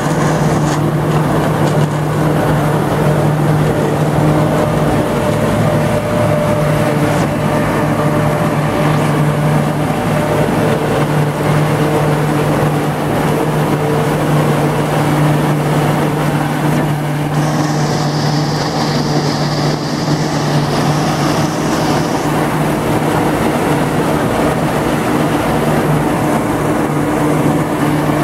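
Ford tractor running under load with a Gehl 1060 forage harvester chopping standing corn and blowing the silage out of its spout: a loud, steady mechanical drone with a low hum under it. A higher hiss joins for about five seconds past the middle.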